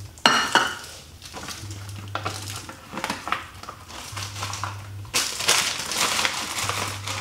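Plastic food packet crinkling and rustling as it is handled, loudest a moment after a sharp clatter near the start and again in a longer stretch from about five seconds in. Underneath, a low hum pulses on and off about every two and a half seconds.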